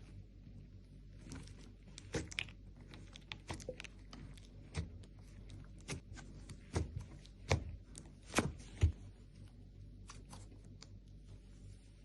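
Slime being mixed, making irregular sticky clicks and pops, with the louder ones bunched between about six and nine seconds in.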